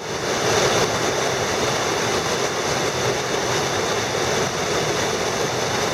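Rushing water of a mountain stream, a steady full rush that starts suddenly at a cut.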